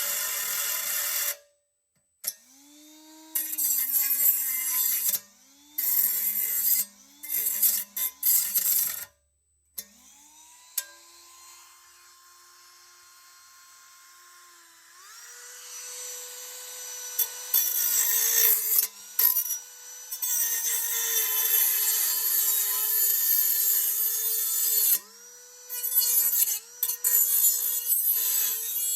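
Power cutting tool cutting through a lawnmower's steel exhaust pipe: the motor whine rises and falls as the tool is started and stopped, with a bright hiss while the cut bites. It stops briefly several times.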